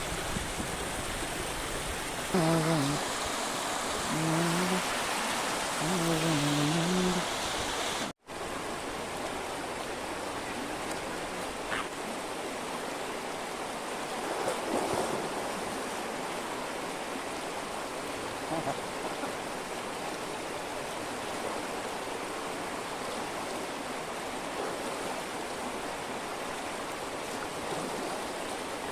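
Chaparai waterfall's water rushing over rocks, a steady rush. A voice sounds over it for a few seconds near the start.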